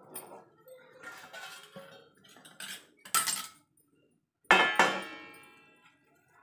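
A spatula scraping and clinking against a steel pan of thick Mysore pak mixture, with a sharp knock about three seconds in. About four and a half seconds in, a steel plate clangs and rings, fading over about a second and a half.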